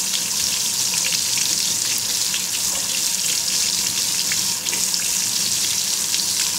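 Water running steadily from a newly installed kitchen faucet, splashing over a hand held in the stream and into a stainless steel sink.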